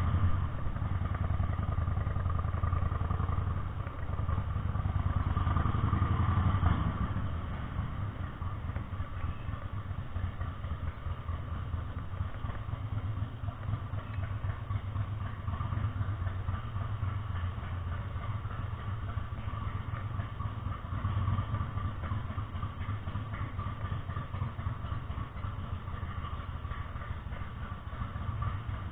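Harley-Davidson Sportster 883R's air-cooled V-twin engine running at low speed. It is louder for about the first seven seconds, then settles to a lower, steady putter as the bike rolls slowly.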